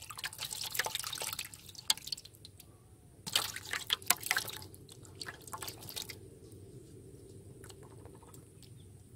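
Live catfish and climbing perch flapping in shallow water in a metal basin: bouts of quick wet splashes and drips, one at the start and another about three seconds in, then only the odd drip.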